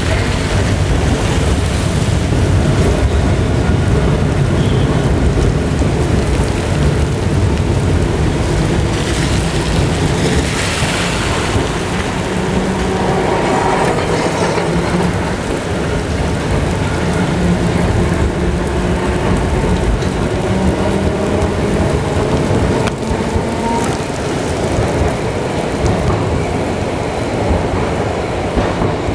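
Peter Witt tram running along wet street track, heard from on board: a steady heavy rumble from the running gear under a hiss of rain and wet rails, with faint wavering whine-like tones.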